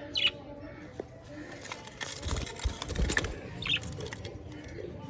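Parrots calling with short, sharp squawks, one just after the start and one a little before the end. Between them comes a stretch of rustling and clattering.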